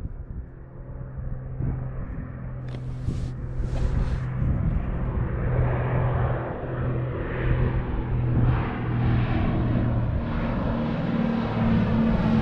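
Propeller-driven light airplane on landing approach, its steady engine-and-propeller drone growing louder as it nears. Two brief hisses about three seconds in.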